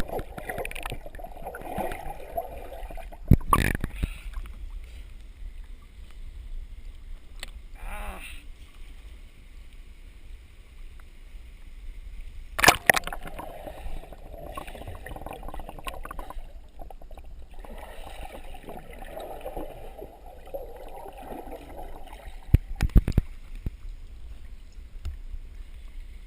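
Stream water sloshing and gurgling close around a GoPro camera, broken by three sharp knocks: one a few seconds in, one near the middle and one near the end.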